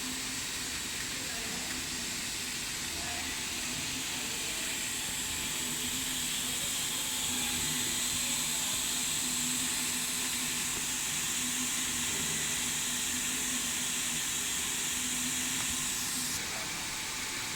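SXG-45H 3D printer filament extrusion line running: a steady hiss over a faint low machine hum. The highest part of the hiss drops away about a second before the end.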